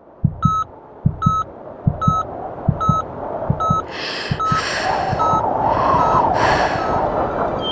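Background music: a short, high beep repeating about every 0.8 seconds over soft low thumps, with a fuller, airy layer swelling in from about halfway through.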